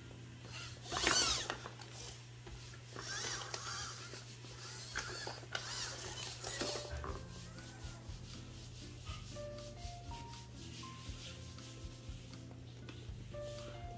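A hand stroking the hard plastic shell of an Elephant Robotics MarsCat robot cat: rubbing swishes, loudest about a second in, then more from about three to seven seconds. Background music plays underneath.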